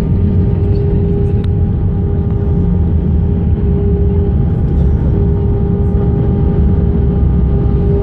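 Jet airliner noise: a steady low rumble with a constant engine hum.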